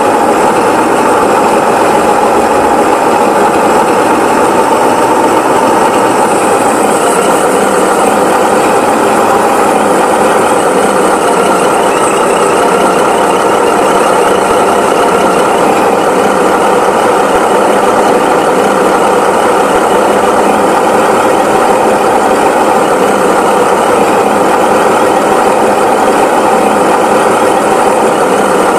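Tractor engine sound running steadily at an even pace, with no revving or pauses.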